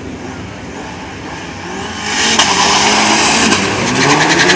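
Two drag-racing cars, a turbocharged Ford Festiva and a Chevrolet Cobalt, running at the start line, then launching at full throttle about two seconds in. The sound turns suddenly loud and the engine notes rise in pitch as they accelerate away down the strip.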